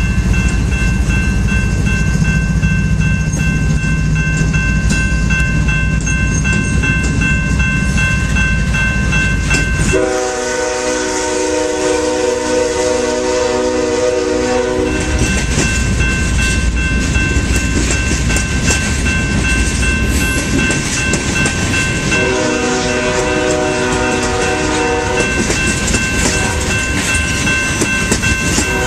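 Freight train passing: diesel locomotives rumble by, then tank cars roll past with steady wheel noise and clatter. A train horn sounds in long blasts, one about ten seconds in lasting several seconds, another about twenty-two seconds in, and a third starting near the end.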